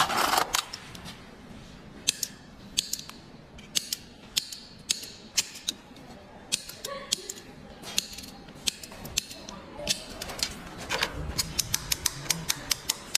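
Sharp metallic clicks and snips, irregularly spaced, of a hand cutting tool notching a metal key blank, with a quicker run of clicks near the end.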